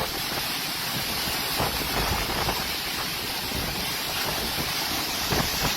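Strong storm wind blowing in gusts, a loud, steady rush of noise with wind buffeting the microphone.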